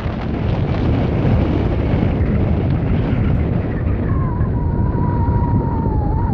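A car driving on a narrow road: a steady rumble of engine and tyre noise, with wind buffeting the microphone. A faint, thin, steady tone comes in about four seconds in and dips slightly near the end.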